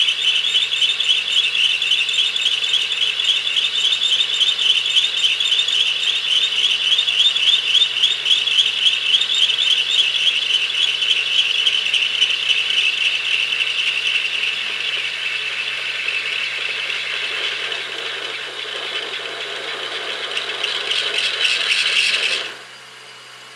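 A drill bit in a Logan lathe's tailstock chuck squealing as it cuts into a spinning cast iron blank: a high, steady squeal with a fast fluttering chatter in it. It eases off in the middle, builds again, then stops suddenly near the end, leaving the lathe running quietly.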